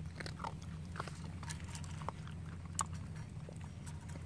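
Puppy crunching dry kibble from a steel bowl: irregular crunches and clicks of chewing, over a steady low hum.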